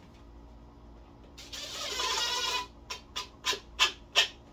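Hand-sanding a wooden piece at the bench. There is one long rub, then about five short quick strokes.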